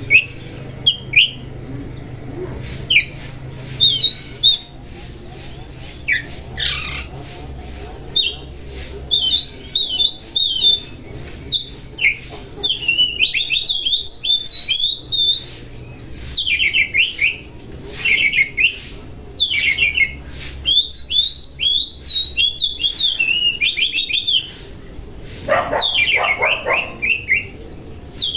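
Oriental magpie-robin (kacer) singing in bursts of quick, varied whistles and chattering notes, with a harsher, lower call near the end, over a faint steady low hum.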